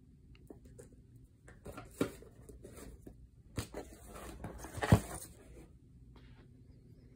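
Cardboard fireworks packaging being handled during unboxing: light rustling with a few scattered knocks, the loudest about five seconds in.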